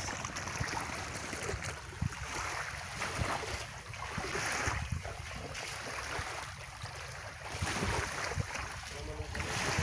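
Small waves lapping at a rocky shore, with wind rumbling on the microphone.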